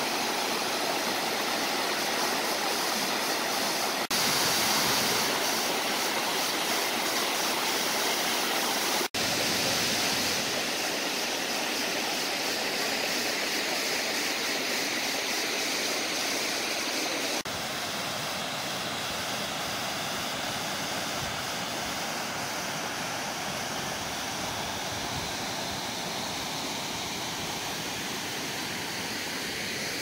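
Steady rush of water from a cascading waterfall, broken by a few abrupt cuts. A bit past halfway it gives way to a softer, lower rush of a shallow brook flowing over rocks.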